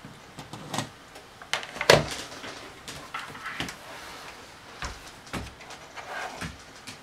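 Irregular light clicks and knocks of hands moving a USB cable and plug about on a desk, the loudest about two seconds in.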